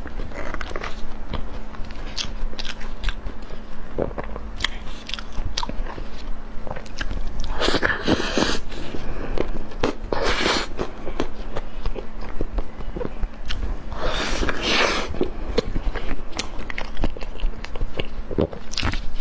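Close-miked biting and chewing of soft chocolate-coated cake: many small wet mouth clicks and smacks. A few louder, longer noisy stretches come about 8, 10 and 14 seconds in.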